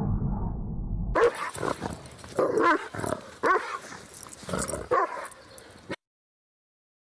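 A small dog yapping: about seven short barks in quick groups over some four seconds, starting about a second in after a low rumble.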